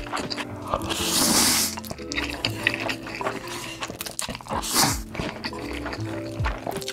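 Close-miked eating sounds: chewing, then instant noodles slurped up from chopsticks, with a hissy slurp about a second in and another shorter one about five seconds in. A soft lo-fi music track with a steady beat plays underneath.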